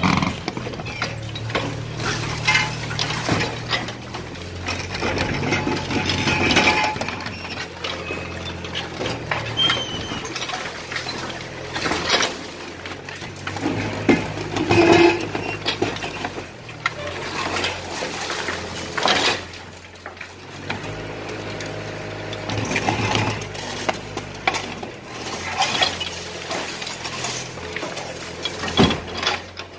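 Hydraulic excavator demolishing a house: the engine runs under repeated knocks, crunches and clinking clatter of breaking and falling brick and concrete rubble.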